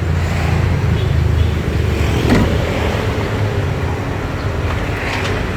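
Road traffic: a steady low rumble of passing motor vehicles, with a short knock about two seconds in.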